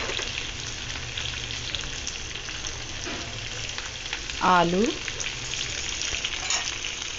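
Hot oil and ghee sizzling steadily in a frying pan with fine crackles as chopped carrots, peas, beans and potato cubes fry in it.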